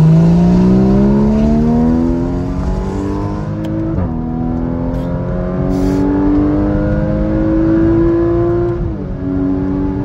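Porsche 981 Cayman GTS flat-six engine accelerating hard, rising in pitch through the revs, with two upshifts: the pitch drops about four seconds in and again near the end before climbing again.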